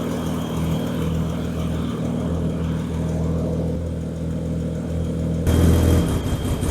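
BMW 730i E32's M30 straight-six engine running steadily just after being started. About five and a half seconds in, the sound abruptly turns louder and noisier.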